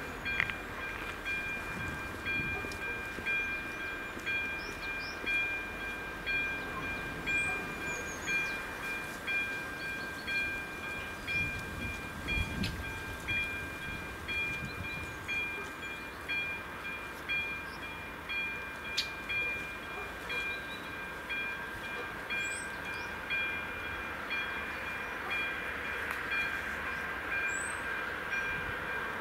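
Level-crossing warning bell ringing steadily, a repeated metallic ding that warns of an approaching train. Faint bird chirps sound now and then.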